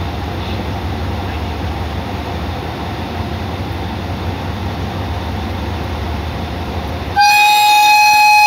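Hitachi diesel-electric locomotive no. 4505 pulling away with a steady low engine rumble. About seven seconds in, its horn sounds abruptly: one loud, steady, high note held to the end. This is the classic Hitachi horn tone that railfans prize.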